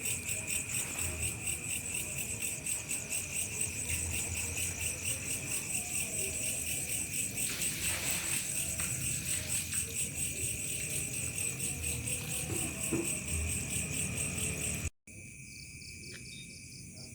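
Crickets chirping in a steady night chorus, a fast, even trill. About fifteen seconds in it cuts off abruptly and gives way to a quieter chorus.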